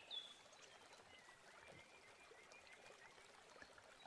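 Near silence: faint background hiss, with one short high falling chirp right at the start and a faint thin wavering whistle in the middle.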